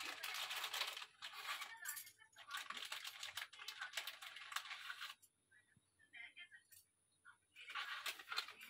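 Rustling and light clicking from hands handling a packet of incense sticks, with bangles clinking, in two spells: about five seconds, then a pause, then a short spell near the end.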